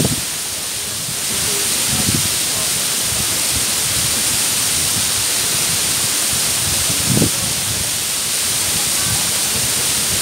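The Mumlava waterfall's steady rush of falling water, with a few brief low thumps, the strongest about seven seconds in.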